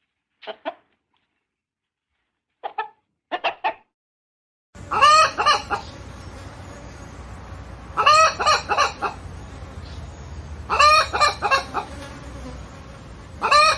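Hen clucking: a few short separate clucks in the first few seconds. Then, from about five seconds in, loud bursts of several rising notes come every three seconds or so over a steady background noise.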